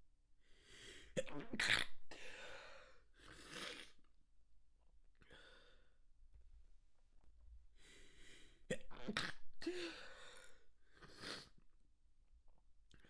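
A person stifling sneezes in two bouts. In each, a breathy build-up leads into sharp, clipped, held-back sneezes, followed by heavy breaths out. The sneezes are manually induced by stimulating the nose.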